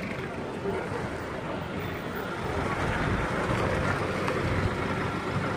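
Outdoor roadside noise: a steady rumble of vehicle engines with wind on the microphone.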